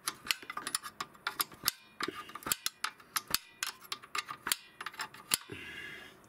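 A steel wrench clicking and clinking on a front suspension bolt, a quick irregular run of sharp metallic clicks as the bolt is worked in short strokes, with a brief scrape near the end.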